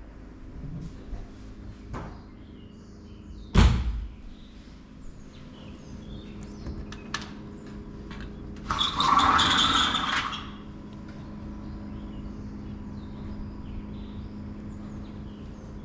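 Doors being worked during a walkthrough of an empty apartment: a sharp knock about three and a half seconds in, then a loud sliding rumble lasting about two seconds near the middle, over a steady low hum with faint bird chirps.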